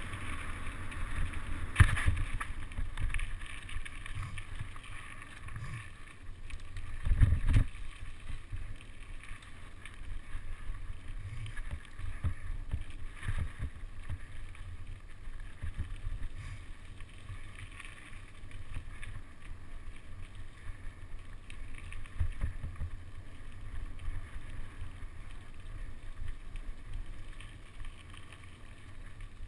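Mountain bike rolling fast over a dirt woodland trail: a steady low rumble of knobbly tyres and wind on the microphone, with knocks and rattles from bumps in the trail. The loudest jolts come about two seconds in and about seven seconds in.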